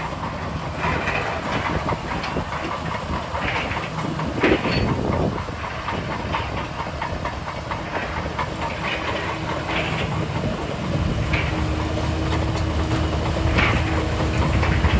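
Heavy earthmoving machinery running with a steady low diesel rumble, with irregular metallic clanking and rock scraping throughout. A steady engine whine joins about eight seconds in.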